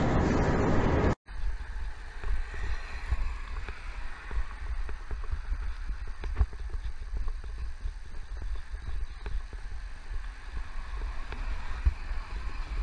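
Steady road noise from a vehicle dash camera, which cuts off about a second in. Then comes a low, fluctuating wind rumble on the microphone of a camera on a moving motorbike.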